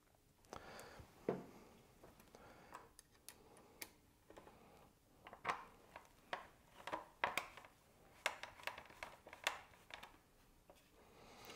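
Faint, scattered small clicks and metallic taps of a button-head bolt and P-clamp being fitted by hand onto a motorcycle's plastic fork guard, sharper ones coming in a loose run from about halfway through.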